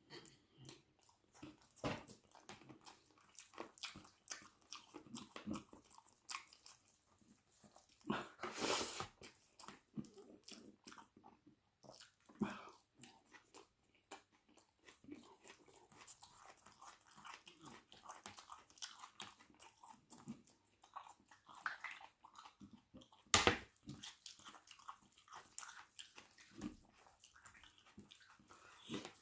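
Close-miked eating: a person chewing and biting into spicy chicken wing curry with rice, onions and mango salad, with wet mouth smacks, clicks and crunches. A longer, louder burst of noise comes about eight and a half seconds in, and a sharp loud one a little after twenty-three seconds.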